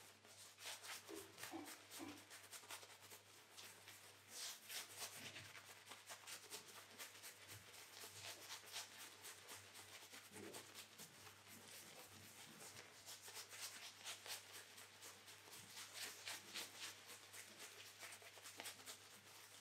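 A shaving brush is lathering shaving cream onto a stubbled face: faint, quick, scratchy brushing strokes go on and on, over a low steady hum.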